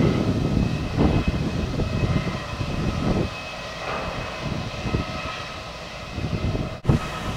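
Grain silo loading plant running while wheat pours through the spout into a hopper wagon: a steady mechanical drone with a faint high whine, over an uneven low rumble that is heaviest in the first few seconds.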